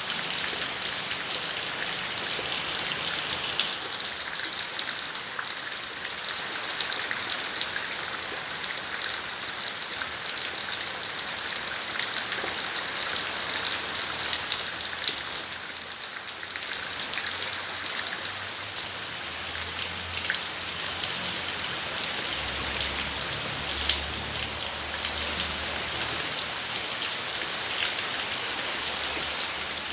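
Steady rain falling, with many separate drops ticking on surfaces. A faint low rumble comes in during the second half.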